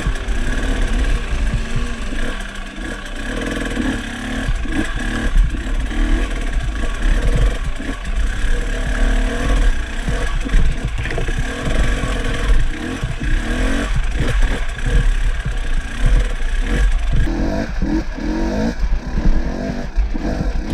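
Off-road motorcycle engine revving up and down repeatedly while riding a rough trail, with scattered knocks and clatter over a heavy low rumble.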